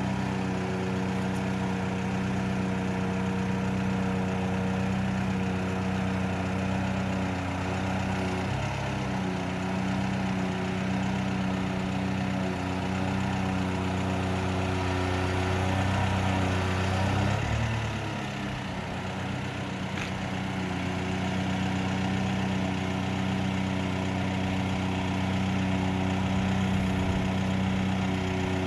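Engine of an articulated aerial-lift truck running steadily, its note shifting and dipping briefly about two-thirds of the way through.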